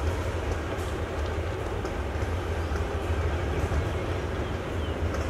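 Hitachi diesel-electric locomotive running light at slow speed, its engine giving a steady low rumble.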